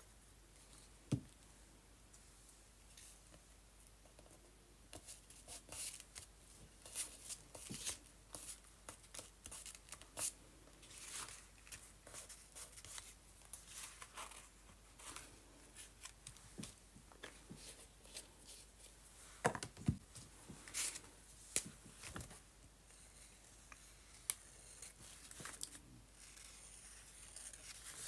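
Hands handling a paper journal page and craft supplies on a tabletop: irregular paper rustles, taps and clicks, with a single sharp knock about a second in.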